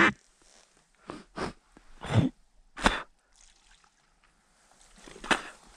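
A few short, separate splashes and drips of water, spaced a second or so apart.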